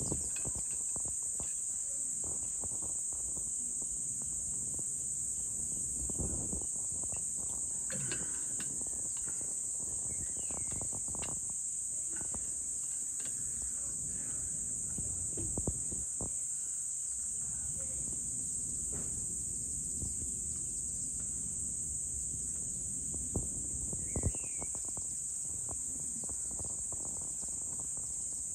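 Evening insect chorus: a steady, high-pitched shrill that never lets up, with scattered faint knocks and a brief chirp about three-quarters of the way through.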